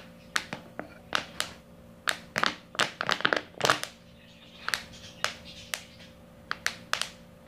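Irregular sharp clicks and taps of a spoon working in a small plastic container while toothpaste foam is added to slime glue, over a faint steady hum.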